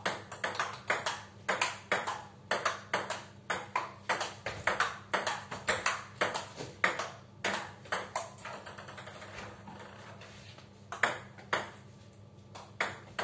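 Table tennis ball being hit back and forth in a rally: sharp clicks of the ball off the rackets and the table in quick alternation, about three or four hits a second. There is a lull with only faint clicks about two-thirds of the way in, then the hitting starts again.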